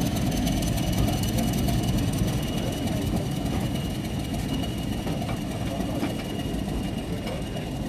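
Passenger coaches rolling past close by behind a departing Class 31 diesel locomotive: a steady low rumble of wheels on the track, with a few light clicks, over the running of a diesel engine. The sound slowly fades.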